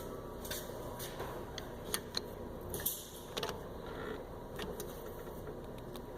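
Scattered metal clicks, taps and creaks of a screwdriver levering the brake pad against the rear caliper to push the piston back, over a steady low background.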